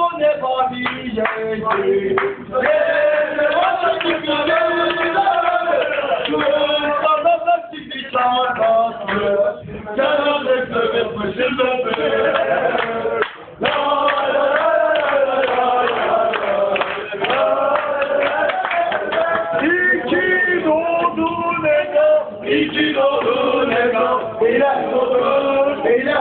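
A man singing live into a microphone over music.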